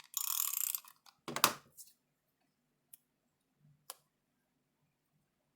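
Paper cardstock being handled on a tabletop: a short rustle, then a thump as a piece is set or pressed down about a second and a half in, followed by two light clicks.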